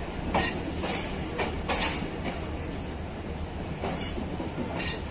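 Passenger coach wheels of a departing train rolling over station points and rail joints, heard from the coach's open doorway: a steady low rumble with irregular sharp clacks, several in the first two seconds and two more near the end.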